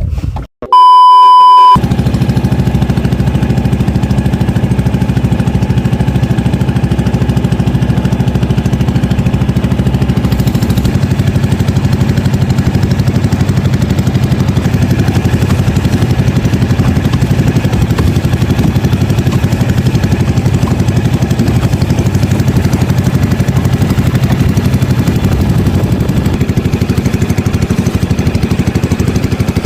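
A loud, high beep for about a second near the start, then a small boat engine running steadily at constant speed.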